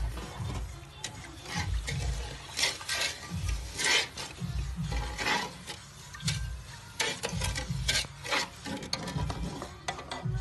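A hand stirring and swishing liquid around in a metal pot, with irregular splashes and sloshes.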